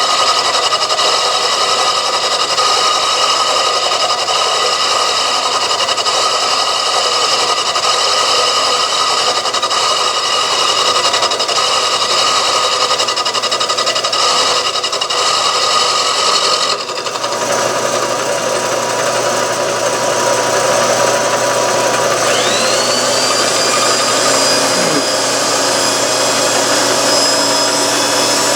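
Milling machine with power feed cutting cast iron, a steady machining whine and grind from a rough, worn cutter that is struggling to take the metal. The sound changes about halfway through, and a high motor whine rises near the end, holds, then falls away.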